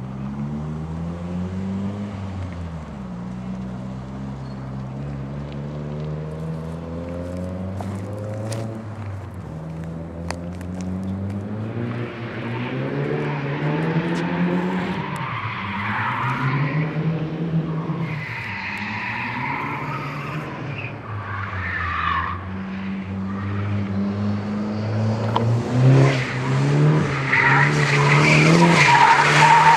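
Drift cars' engines revving up and falling back again and again, with tyres squealing as the cars slide sideways through the turn. The squeal grows louder near the end as a car drifts close by.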